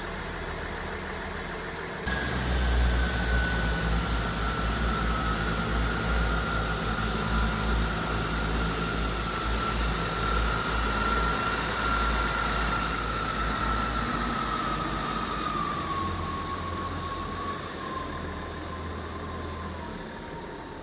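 South Western Railway Class 159 diesel multiple unit running through the platform. There is a heavy engine rumble, and a steady whine that slowly falls in pitch. It starts suddenly and loud about two seconds in and gradually fades towards the end.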